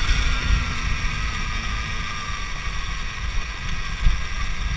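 Alta Redshift MXR electric dirt bike under way on a dirt trail: a high electric-motor and drivetrain whine that drops slightly in pitch over the first couple of seconds, over low wind buffeting on the microphone.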